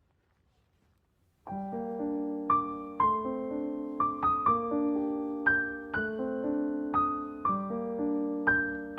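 Near silence for about a second and a half, then gentle background piano music begins: a slow melody of single struck notes over held chords, a new note about every half second.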